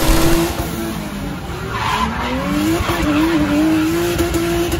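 Drift car engine held at high revs, its pitch mostly steady with a brief waver about three seconds in, over tyres squealing and skidding. Heard from inside a chase car's cabin.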